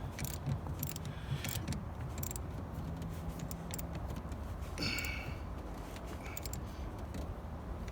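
Scattered light metallic clicks and clinks of a wrench tightening a 10 mm battery terminal nut, with a brief scrape about five seconds in, over a steady low hum.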